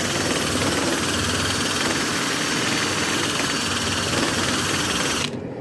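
A power tool runs steadily while cleaning the area around a split in a radiator before soldering, then cuts off suddenly about five seconds in.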